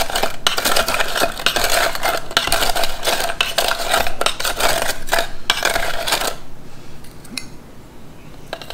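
Metal spoon stirring ice cubes and table salt inside a metal can: a dense clattering, scraping rattle of ice against metal. It stops about six seconds in, leaving a few light clinks.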